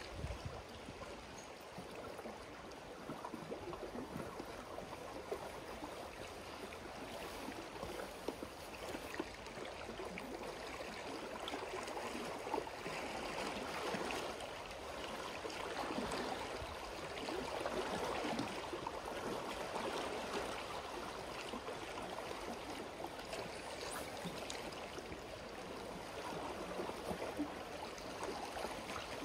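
Small lake waves lapping and splashing against shoreline rocks: a steady water wash that swells and eases, louder in the middle stretch.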